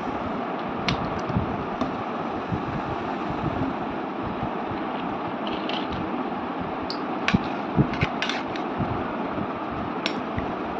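Steady whirring hiss of a running room fan. A few light clinks of a steel spoon against the glass mug and plate come about seven to eight seconds in and again near the end.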